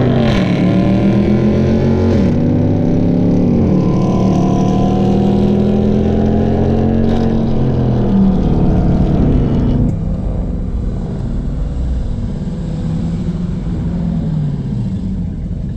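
A 2018 Dodge Charger R/T's Hemi V8 under hard acceleration, heard from inside the car. The engine pitch climbs and drops sharply at each of several upshifts. About ten seconds in it gets quieter as the throttle comes off, and the revs wind down as the car slows.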